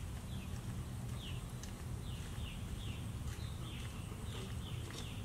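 A bird calling over and over, a short falling note about twice a second, over a low steady hum.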